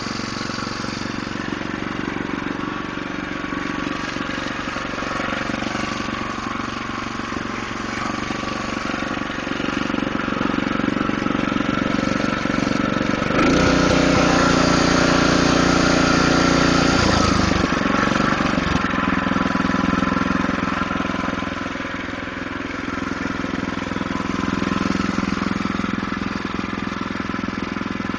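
Honda HS624 tracked snowblower's single-cylinder engine running steadily, growing louder and deeper for about four seconds around the middle before settling back.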